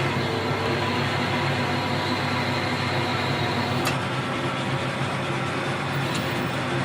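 Metal lathe running with a steady mechanical hum, with a couple of faint clicks partway through.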